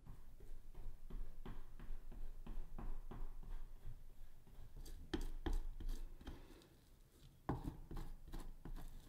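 Metal spoon pressing and scraping a crumbly nut-and-date crust into a metal springform pan: a run of short, irregular scrapes and soft taps, a few louder strokes past the middle.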